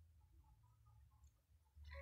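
Near silence: faint low room hum.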